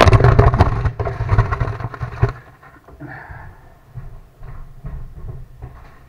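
Loud scraping and rustling of a hand fumbling against the camera and the metal of a wood stove firebox for about two seconds, then a few scattered light knocks.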